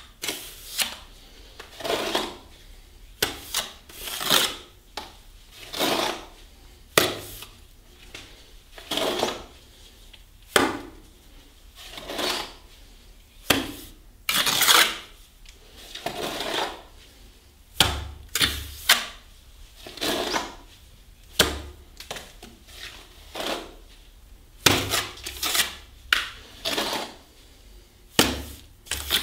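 Steel plastering trowel scraping and spreading cement plaster along a door reveal, in irregular strokes about one a second. A few dull slaps come in among them.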